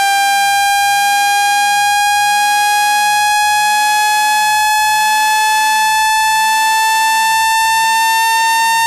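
Generated speaker-cleaning tone: a loud, steady, buzzy electronic tone rich in overtones, gliding slowly and evenly upward in pitch.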